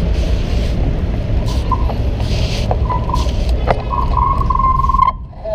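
Steady low rumble of wind and road vibration on a bicycle-mounted camera while riding over pavement. Short high squeals come through, with a longer one held for over a second from about four seconds in.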